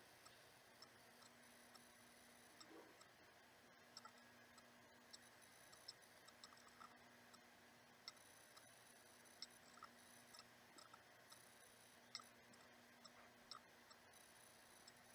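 Near silence: room tone with faint, irregular small clicks from decorations being handled and placed inside a bird cage.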